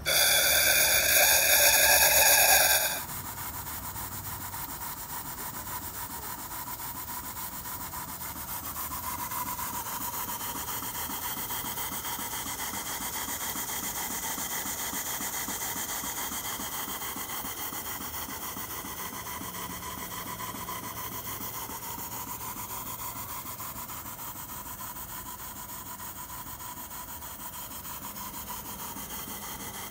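Cotswold Heritage Perseus model steam engine running steadily, a quick, even chuffing with a hiss of steam. For about the first three seconds a louder, shrill sound with several tones rides over it.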